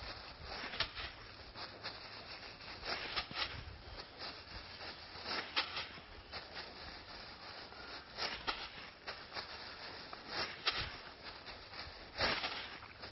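A plastic bag rustling and crinkling as it is rubbed over a mare's back, in short irregular strokes, to get the fearful horse used to it.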